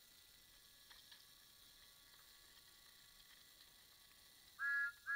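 Two short, high-pitched electronic whistle toots from a Talking Thomas toy engine's sound chip near the end, each about a third of a second long. Before them there are only a couple of faint handling clicks.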